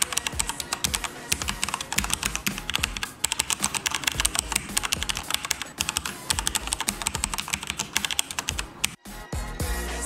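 Fast typing on a Corsair K70 RGB mechanical keyboard with Cherry MX Red linear switches, a dense run of keystrokes over background music. The typing stops about nine seconds in, leaving the music.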